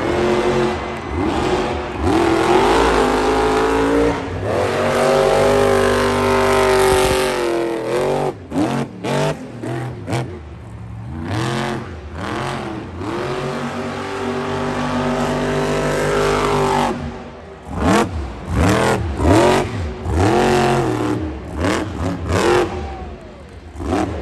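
Monster truck's supercharged V8 engine revving hard: long runs held at high revs, broken by sudden drops and climbs, then several quick throttle blips near the end.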